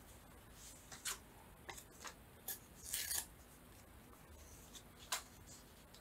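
Faint, short rustles and crinkles of paper being handled and pressed down while collaging, about six in all, the longest about three seconds in.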